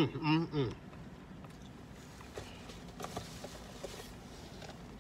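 A man's short voiced sounds with no clear words, gliding in pitch, in the first second. Then quiet chewing with a few faint small clicks while he eats.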